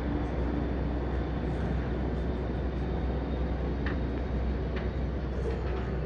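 Steady low rumble of a moving vehicle heard from on board, with a few faint clicks.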